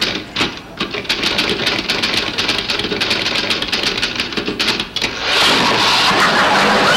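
Typewriter keys clattering in quick strokes from a manual office typewriter at work. About five seconds in, the clatter gives way to a sudden, louder, steady rush of noise.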